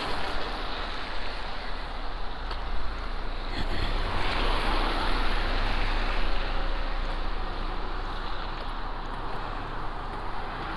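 Steady rush of road traffic on a snowy, slushy street, with wind noise on the microphone.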